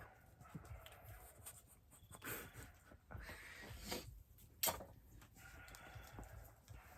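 Faint scraping and small clicks as a sharp knife strips insulation off extension-cord wires, with one sharper click about two-thirds of the way in.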